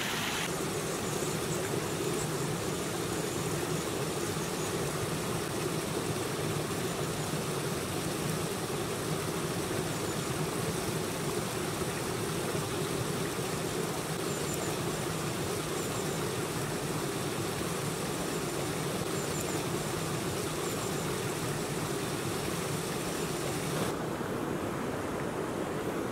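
Steady rush of a small stream cascading over rocks. A few faint high ticks come through in the middle, and the sound turns duller near the end.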